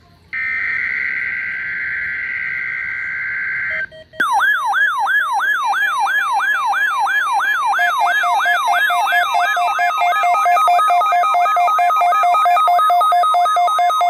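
NOAA Weather Radio SAME digital header burst, a buzzy data screech, cuts off about four seconds in. Weather alert radios, a Midland and a RadioShack, then sound their alarms for the required weekly test: a fast, repeating siren-like sweep, about three to four sweeps a second, joined about halfway through by rapid beeping.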